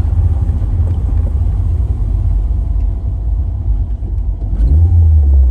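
Car engine and road rumble while driving; about four and a half seconds in the engine pulls harder, its pitch rising as the revs climb.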